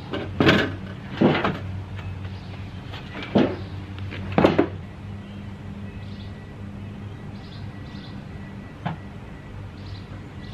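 Knocks and scrapes of a small electric hot plate being pulled by its cord and set down between logs on a corrugated metal sheet. There are four louder knocks in the first half and a light click later, over a steady low hum.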